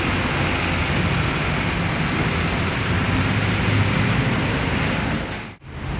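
Intercity coach's diesel engine running as the bus pulls slowly past, over steady city traffic noise. The sound drops out abruptly for a moment near the end.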